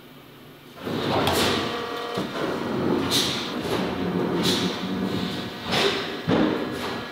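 Thin perforated stainless steel discs sliding and scraping against each other as they are handled off a stack, a metallic rattle with ringing tones starting about a second in. A sharp metallic knock comes about six seconds in.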